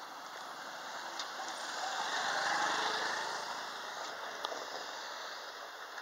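A car passing on the road, growing louder to its loudest about halfway through and then fading away.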